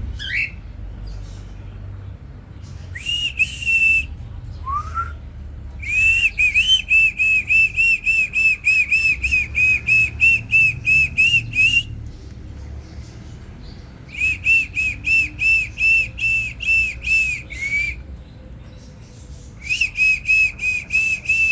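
A bird singing in three long bouts of rapidly repeated, clear whistled notes, about four to five a second. A few single upslurred notes come before the first bout.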